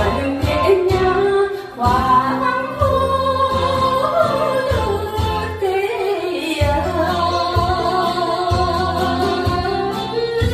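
A woman singing a Korean trot song over a backing track with a steady bass beat.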